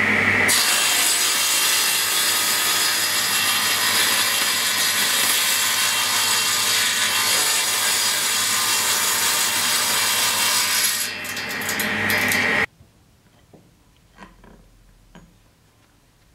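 Table saw ripping a thin strip of wood, the blade cutting steadily for about twelve seconds and lightening briefly near the end. The sound then stops abruptly, leaving only a few faint taps.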